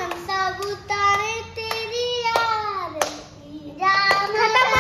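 A young girl singing in long held notes while clapping her hands about every half second; the singing breaks off briefly past the middle and picks up again.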